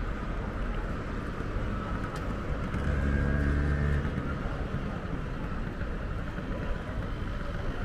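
Street traffic heard from a moving bicycle, a steady rumble with a motor vehicle's engine hum rising loudest for about a second, around three seconds in.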